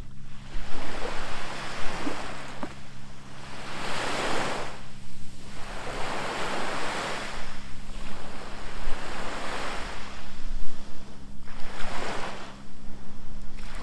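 Sea waves washing up a sandy beach, each surge swelling and ebbing every few seconds, with wind rumbling on the microphone.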